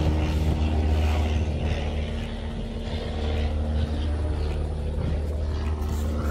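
A steady low mechanical drone, like a running engine or machine, with a deep hum and several even overtones.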